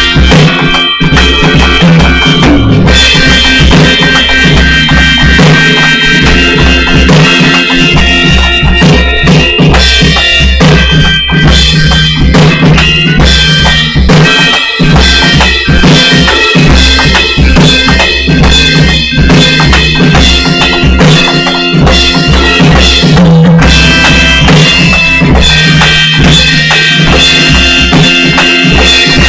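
Loud band music from an original song: a drum kit with bass drum and snare keeps a steady beat under sustained chords and a deep bass line.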